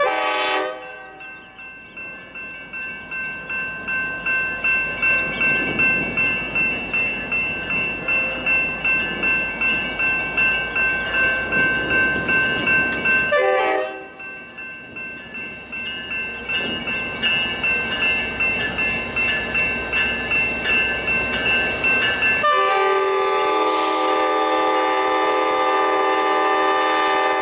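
A grade-crossing bell rings steadily about twice a second. A diesel locomotive's multi-note air horn gives a short blast at the start and another about halfway. Near the end the horn is held in one long loud blast as the train approaches.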